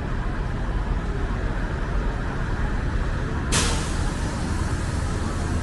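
Steady low rumble of city street traffic, with a sudden loud hiss about three and a half seconds in that carries on as a steady hiss after it.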